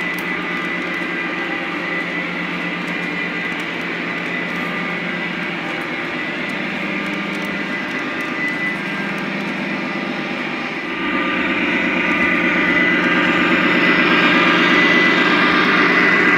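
Lionel Legacy O-gauge model train rolling steadily along the track, with a continuous diesel engine hum from the models of Norfolk Southern diesel locomotives. About eleven seconds in it grows louder and fuller as a locomotive comes close past.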